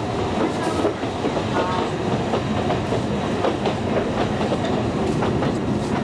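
Alishan Forest Railway narrow-gauge train running, heard from inside the carriage: a steady rumble with irregular clicking of the wheels over the rails.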